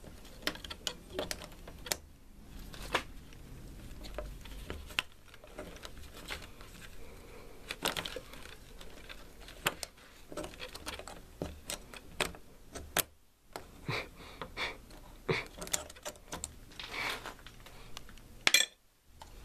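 Irregular small metallic clicks and scrapes of a thin tool being worked in a doorknob's keyhole, trying to pick the lock, with one louder click near the end.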